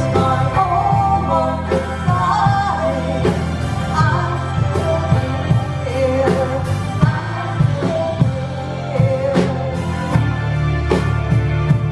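A woman singing live with a band backing her: a wavering vocal melody over a steady bass line and regular drum hits.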